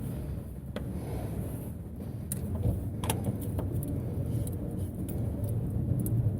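A few sharp metallic clicks and knocks from hands working at a stuck oil filter under a 7.3 Powerstroke diesel, over a steady low rumble.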